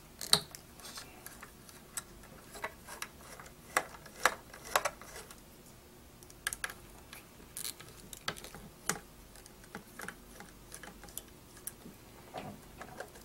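Small screwdriver undoing the spring-loaded screws on a graphics card's cooler bracket: light, irregular clicks and taps of the metal tool on the screws and card.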